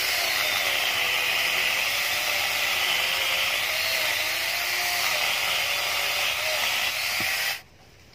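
Corded angle grinder fitted with a chain-saw attachment, running and cutting through a mango branch, its motor whine wavering as the load changes. It stops abruptly near the end.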